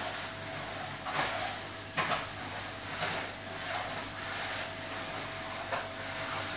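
Steady hum and hiss of a reef aquarium's running pumps and water flow, with a few soft knocks.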